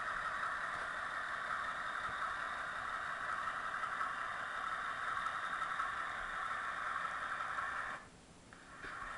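Diesel locomotive engine sound from a Soundtraxx DCC sound decoder, played through the small speaker of an HO scale U23B model: a steady, thin-sounding run that cuts out briefly about eight seconds in, then comes back.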